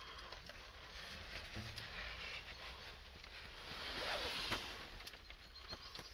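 Soft rustling and handling noise with a few light clicks as a handheld camera is moved about inside a car and rubs against the seat upholstery, swelling into a louder rustle about four seconds in.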